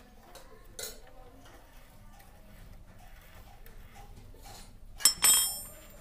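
Steel spanner clinking against metal: a faint knock about a second in, then two sharp clinks in quick succession near the end that ring briefly.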